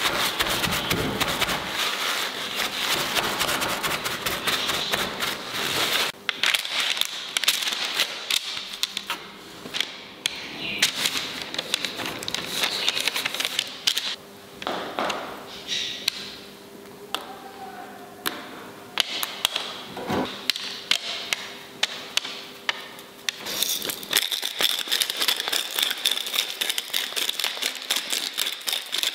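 Paper rustling and crinkling with many light clicks and taps from hands preparing raw salmon steaks: patting them with a paper towel, setting them on baking paper and sprinkling chopped garlic and salt over them.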